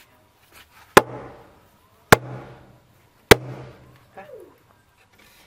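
Wooden mallet striking a timber beam three times, a little over a second apart, knocking a tenon into the mortise of a log pillar to join the wooden house frame. Each blow is a sharp knock with a short ringing decay.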